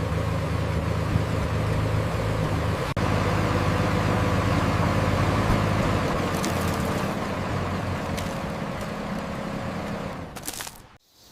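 Engine of construction machinery running steadily with a low hum, the sound breaking off sharply about three seconds in and picking up again, then fading away near the end.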